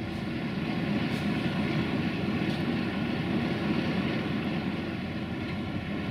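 Steady drone of grain-loading machinery: a belt conveyor running as grain pours off its end into a hopper wagon, with engine noise underneath.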